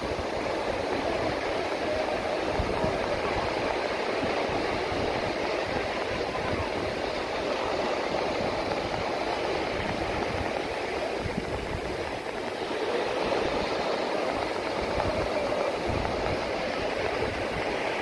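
Small waves breaking and washing up on a beach: a steady rushing surf, with wind buffeting the microphone.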